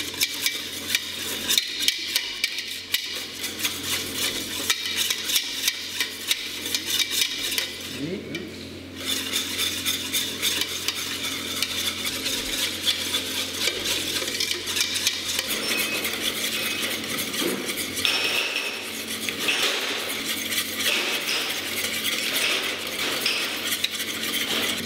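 Wire whisk beating rapidly against the sides of a stainless steel mixing bowl, a fast clatter of strokes as oil is whisked into mustard to emulsify a vinaigrette. The whisking pauses briefly about eight seconds in, then resumes.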